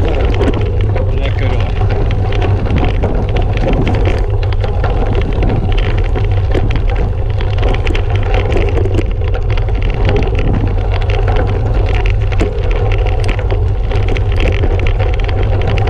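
Gravel bike tyres rolling over a dirt cart track: a steady crunch peppered with many small clicks of grit under the wheels, over a heavy low rumble of wind on the handlebar-mounted microphone.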